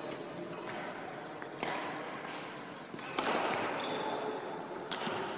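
A few sharp knocks ringing in a large sports hall, the loudest about three seconds in, with a short squeak of a sneaker sole on the court floor just after it.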